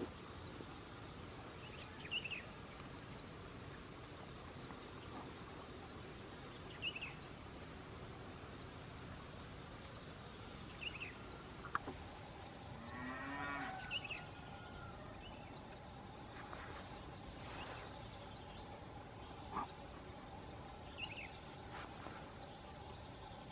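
Rural outdoor ambience: a steady high drone of insects with short bird chirps every few seconds. About halfway through an animal gives one longer, lower call.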